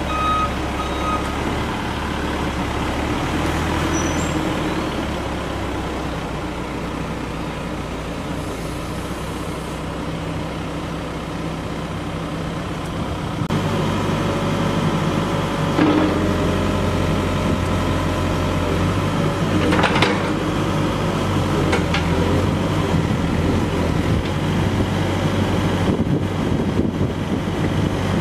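Volvo BL70 backhoe loader's diesel engine running, with its reversing alarm beeping for about the first second. About a third of the way in the engine speeds up and runs louder, and three sharp metallic knocks come soon after.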